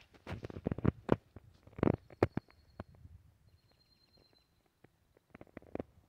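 Footsteps on dry ground litter with handling knocks on the handheld camera, irregular and heaviest in the first couple of seconds, then thinning to scattered ticks. A faint, high, steady tone comes in about halfway through.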